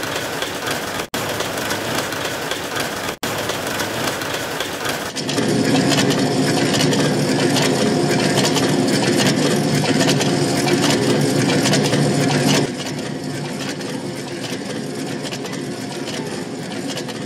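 Bakery production-line machinery running with a steady mechanical hum and clatter. It changes abruptly between shots and grows louder, with a steady low hum, about five seconds in.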